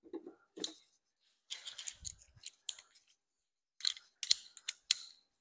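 Hand tools being handled in a workshop: short metallic clicks and clinks in three bursts, with a dull knock about two seconds in.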